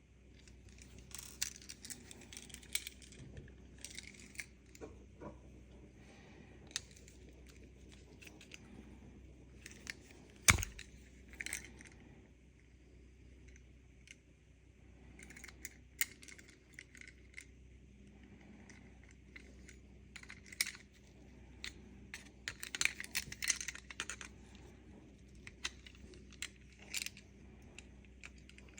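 Small clicks, taps and rustles of a car key fob and its parts being handled, with one sharp click about ten and a half seconds in, the loudest sound.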